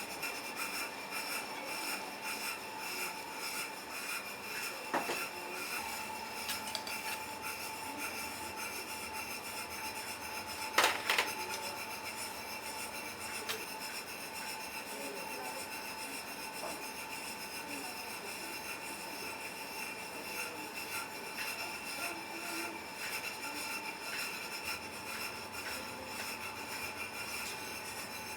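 Restaurant kitchen work sounds over a steady hum with a few steady tones: continual scraping and rubbing, small clicks, and a sharp double clack about eleven seconds in.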